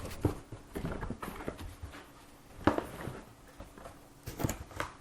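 A helmet box being handled and opened: scattered knocks and taps with some rustling, the loudest knock a little past the middle and a quick cluster of taps near the end.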